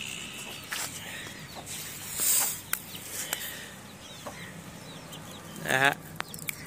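Chickens clucking in the background, with one louder cluck just before the end, among small clicks and a brief hiss about two seconds in.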